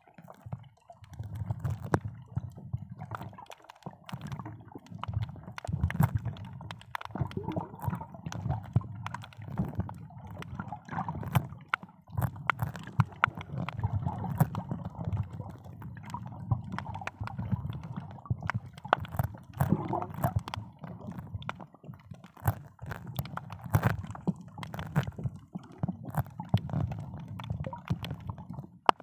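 Muffled underwater sound picked up by a submerged camera: water gurgling and sloshing with a steady low rumble, dotted with many small clicks and crackles.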